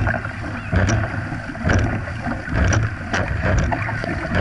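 Dragon boat paddles striking and pulling through the water in a steady rhythm, about one stroke a second, with water rushing and splashing against the hull.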